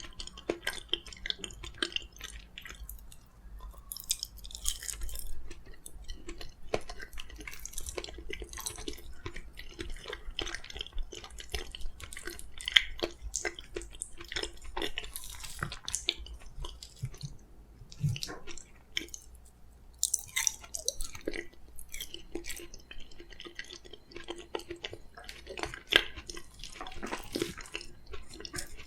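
Close-miked chewing of soft steamed sweet pumpkin: irregular wet mouth clicks and squelches, one after another.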